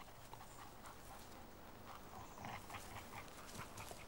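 African wild dog gnawing on a piece of carcass bone: faint, irregular chewing and crunching with short clicks.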